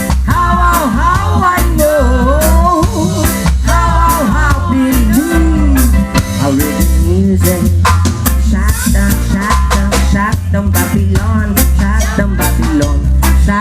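Live reggae band playing: a steady drum and bass groove, with a sliding, wordless melody line over the first half.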